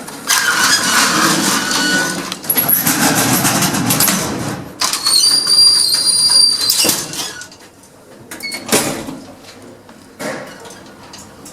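Passenger lift in use: doors sliding and rattling, then a steady high electronic tone for about two seconds partway through, followed by a few separate clunks as the car settles.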